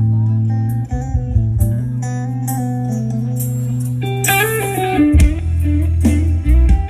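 Live rock band music played loud through a large PA system and heard via the camera's microphone: an electric guitar plays over long held bass notes.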